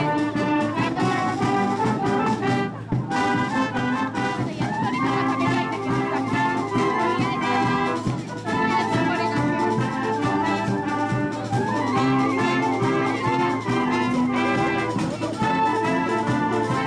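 High-school wind band playing a lively tune, with trumpets and trombones carrying the melody. The music runs without a break except for two short pauses between phrases.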